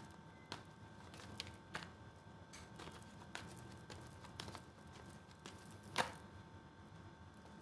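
Tarot cards handled and shuffled by hand: soft, scattered flicks and taps of the deck, with one louder click about six seconds in as the cards are fanned out.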